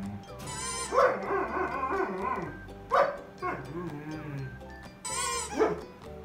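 Weimaraner dog vocalizing in a series of drawn-out, wavering calls, the loudest about a second in and another near the end. Background music plays underneath.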